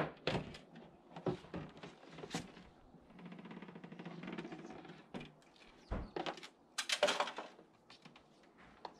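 Plastic foldaway basin knocking and scraping against its vanity unit as it is worked loose and pulled out. The sound comes as a string of sharp knocks, loudest right at the start, with a longer scraping rattle about seven seconds in.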